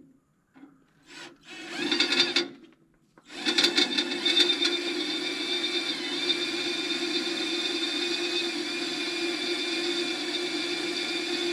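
Cordless drill drilling a hole in the sawmill's ruler guide: two short starts in the first couple of seconds, then running steadily with a high whine from about three seconds in.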